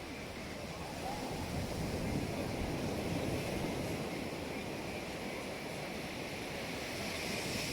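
Surf washing steadily onto a beach, with wind buffeting the microphone.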